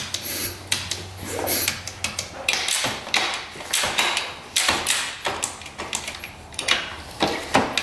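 Gear shift lever and gearbox of a 1983 Honda CR250 dirt bike worked by hand through its gears, engine not running: a series of irregular mechanical clicks and clunks.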